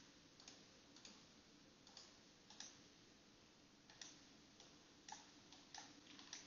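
Faint computer mouse clicks, about ten at irregular intervals, as points are picked in CAD modeling software.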